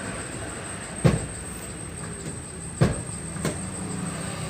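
Sharp knocks from work on the car during clutch replacement: one about a second in, one near three seconds, and another just after. They sit over a steady background hum.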